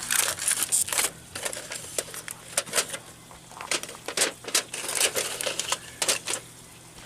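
Irregular sharp crackling and pops from the camp cook fire, several a second, over a faint steady low hum.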